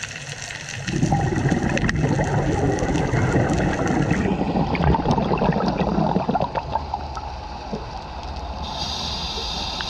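Scuba exhaust bubbles gurgling and rushing past the underwater camera, starting about a second in and dying away after about six seconds, over faint scattered clicks.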